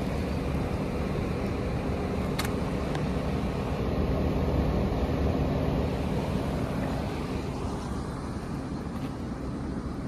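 2014 Trane XB13 central air-conditioner condensing units running: a steady rush of condenser fan air over a low hum.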